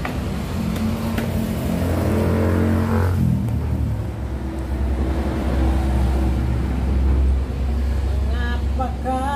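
A low, steady engine-like rumble throughout, with a voice heard near the end.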